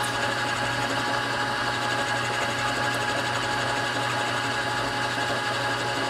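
Milling machine spindle running steadily at low speed while a small end mill slowly plunges into titanium, cutting a screw-head counterbore: an even motor hum with a few constant tones.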